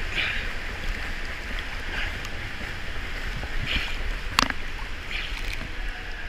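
A swimmer's kick churning and splashing pool water close by, with surges of splashing about every one and a half to two seconds over a steady wash of water, and one sharp slap about four and a half seconds in.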